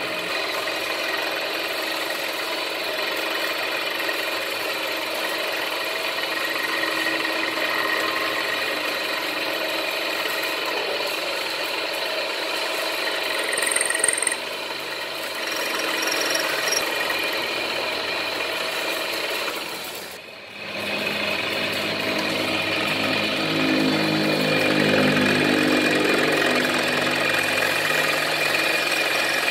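Power tool running steadily with a whining tone while cutting valve reliefs into a motorcycle piston, so the valve heads will not hit the piston. It cuts out briefly about 20 seconds in, then starts again.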